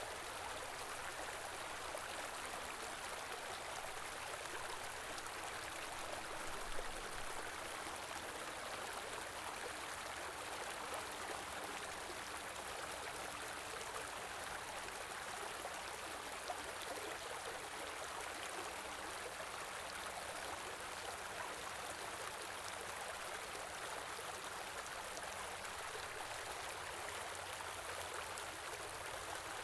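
Small river or stream flowing steadily over rocks, a continuous rushing and gurgling of water, with a brief faint knock about seven seconds in.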